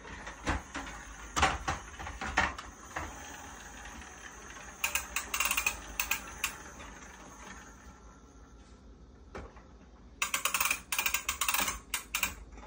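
Hard plastic toy trucks clattering and clicking as a small child pushes them along and knocks them together on a cabinet top: a few single knocks, then two runs of rapid clicking, one about five seconds in and one near the end.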